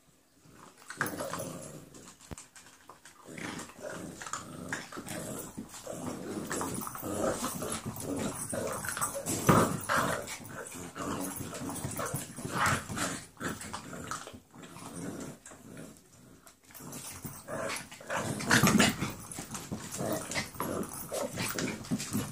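Two 11-week-old puppies play-fighting over a rubber toy, growling in play in irregular bursts, with short scuffling and knocking noises as they wrestle on the floor.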